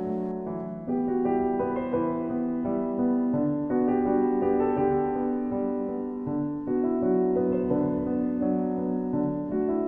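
Background piano music with slow, held notes.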